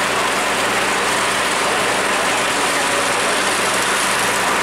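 Heavy truck engine idling steadily, with a constant hiss over it.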